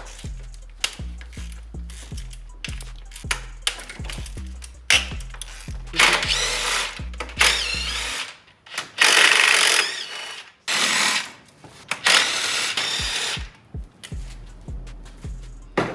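Ratchet wrench clicking in quick strokes, loosening the intake manifold bolts, then a power tool running in several bursts a few seconds in, over background music.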